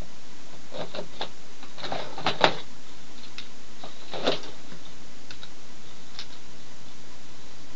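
Scattered light clicks and taps of small hard objects being handled, over a steady hiss; the sharpest tap comes about two and a half seconds in.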